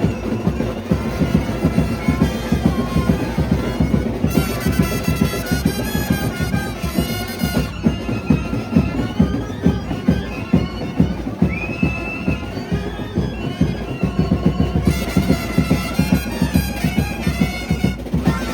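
Indian procession brass band playing a wavering, reedy melody over a steady, dense drum beat.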